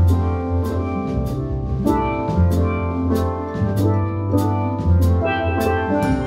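A school steel drum band playing a Christmas tune: steel pans carry ringing melody and chords over low bass notes, with a drum kit's cymbal strokes keeping a steady beat.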